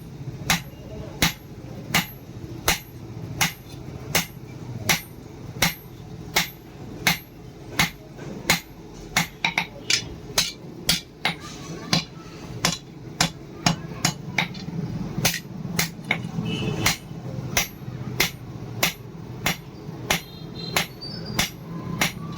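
Hand hammer striking leaf-spring steel on an anvil, steady blows at about two a second with a bright metallic ring, coming a little faster for a few seconds in the middle.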